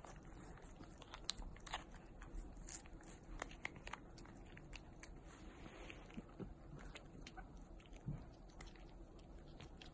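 British Shorthair cat licking a squeeze-tube lick treat: faint, irregular wet smacking clicks from its tongue and mouth.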